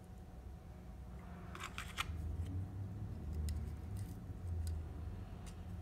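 Light clicks and scrapes of a small servo-motor encoder's parts being handled and fitted by hand: a quick cluster of clicks about one and a half seconds in, then a few scattered single clicks, over a low steady hum.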